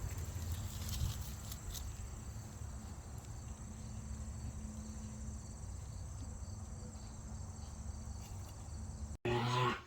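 Insects, crickets by their sound, chirring in a steady high drone over a low rumble. Near the end the sound cuts off abruptly and a brief, louder pitched sound begins.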